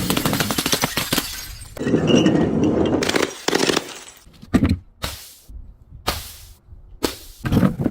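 Glass bottles breaking: two long stretches of dense crunching and shattering in the first three seconds, then a string of separate sharp smashes.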